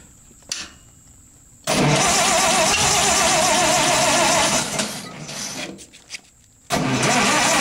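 Lincoln SA-200 welder's engine being cranked with a regular pulsing beat, about two seconds in, for some three seconds before it dies away. A second loud start comes near the end.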